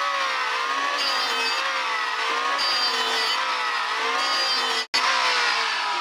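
Corded electric hand planer running while it shaves a wooden plank, its motor pitch dipping and rising as it is pushed along the board. Near the end the motor slows with a falling pitch as it is switched off.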